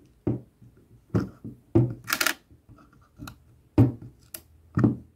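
A string of irregular small clicks and short scrapes, with one longer rasp about two seconds in, as fingers turn the knurled left frame-counter dial on a Flexaret IVa camera. Turning this dial resets the right exposure counter after twelve frames.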